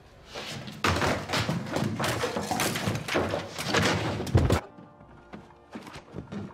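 Loud music with heavy thuds, cutting off abruptly about four and a half seconds in, then quieter music.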